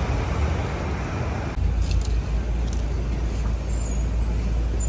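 City street traffic noise: a steady wash of passing cars and engines, with a deep rumble that gets stronger about a second and a half in.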